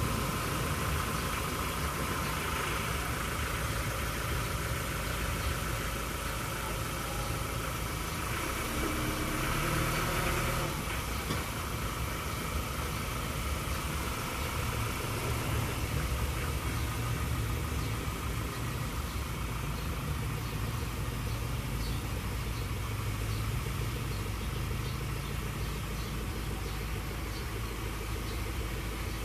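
Ford Ranger Wildtrak pickup's diesel engine idling steadily.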